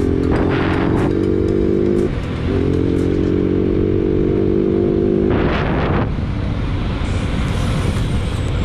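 Bajaj Pulsar NS200's single-cylinder engine running steadily at cruising speed. Its note dips briefly about two seconds in and fades after about five seconds, leaving a steady rush of wind and road noise.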